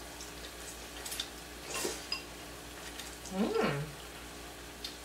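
Ramen noodles being slurped from a bowl in a few short slurps, with a light clink about two seconds in and a brief hummed "mmm" of enjoyment a little after three seconds.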